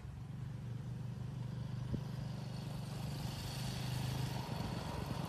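Motorcycle engine running at a low, steady note, fairly quiet, with a single small click about two seconds in.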